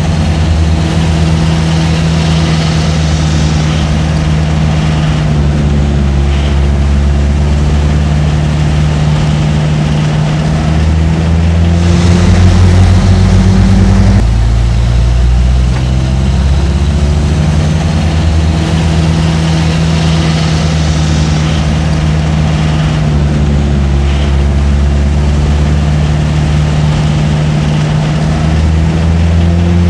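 Truck engine running steadily, pitch drifting slowly up and down, with a louder stretch of about two seconds roughly twelve seconds in.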